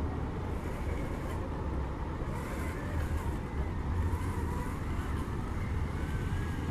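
Traxxas TRX-4 RC crawler's electric motor and gearbox whining faintly, the pitch rising and falling with the throttle as it climbs rock. Under it is a steady low rushing noise from the river and wind.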